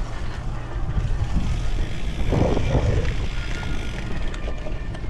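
Wind buffeting the microphone over the rumble and rattle of a cyclocross bike riding across bumpy, muddy grass, louder for a moment about halfway through.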